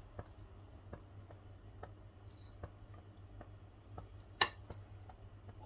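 Pot of chicken and potato curry simmering on a gas stove: faint, irregular little pops over a low steady hum, with one sharper click about four seconds in.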